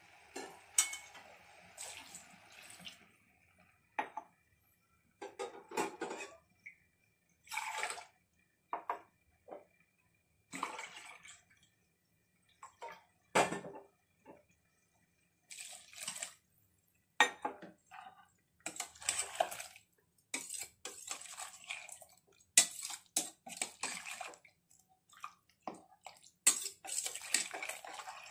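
Water poured from a steel tumbler into a pressure cooker of soaked rice and soya chunks, in a string of short splashing pours, with a steel ladle clinking and scraping against the pot in between.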